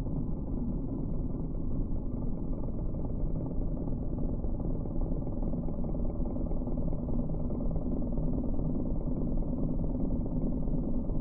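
Bobcat E10 mini excavator's engine and hydraulics driving a Geko stump grinder, a steady low rumble without breaks. The footage is slowed down, so the sound comes out low and muffled.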